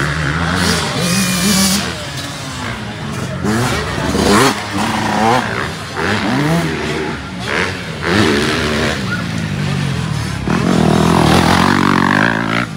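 Motocross dirt bike engines revving up and down through the gears as riders race past close by, loudest near the end as one bike goes right by.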